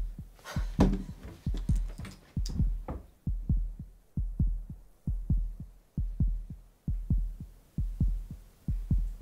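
Heartbeat sound effect: a deep double thump, lub-dub, repeating steadily a little more than once a second.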